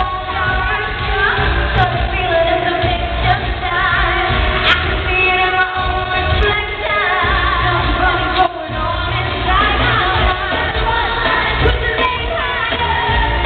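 Live pop music: a female pop group singing over a loud band with a heavy bass line, recorded from the audience at a concert.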